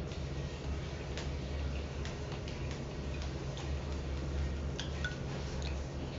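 Person eating dumplings by hand: irregular soft clicks of the mouth while chewing and of fingers on the food, over a steady low hum.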